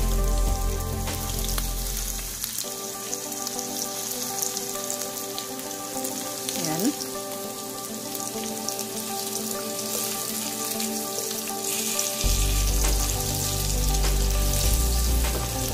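Chopped garlic sizzling in hot oil in a frying pan, a steady hiss. Near the end a wooden spatula stirs it through the pan.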